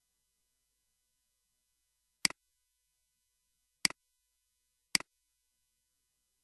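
Computer mouse button clicked three times, each click a sharp press followed at once by a softer release, with silence between.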